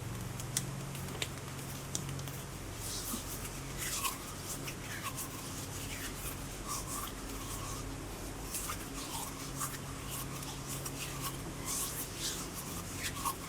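ASMR hand sounds: hands rubbing and fingers brushing close to the microphone, giving soft skin rustles and small clicks throughout, over a steady low hum.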